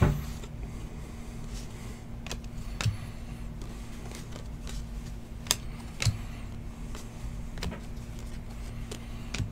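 2019 Unparalleled football trading cards handled and flipped through by hand: scattered soft clicks and slaps of card stock every second or two, over a steady low hum.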